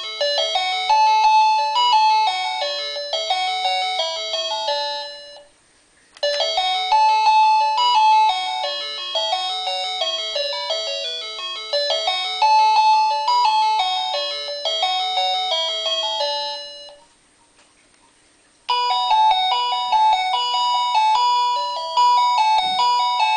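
Wireless battery-powered doorbell chime playing electronic melodies one after another. One tune cuts off about five seconds in. A second plays for about ten seconds and stops, and after a pause of about two seconds a third begins.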